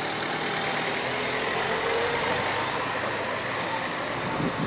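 A motor vehicle's engine running steadily close by, amid street noise.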